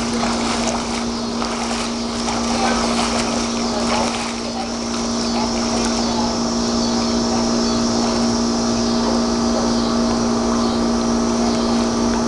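Swimmer's strokes splashing through pool water for the first few seconds, over a steady mechanical hum that runs throughout.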